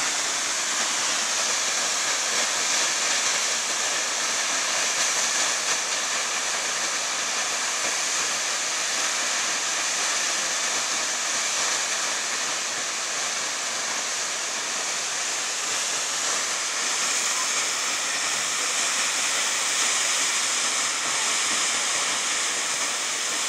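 Steady, even rushing of a tall waterfall plunging down a cliff into a pool.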